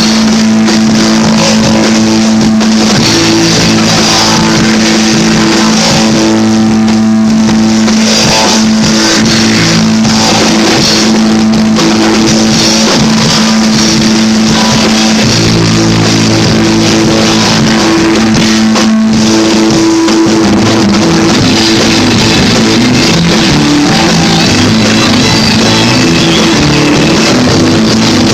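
Rock trio playing loud and continuously: electric guitar, bass guitar and drum kit.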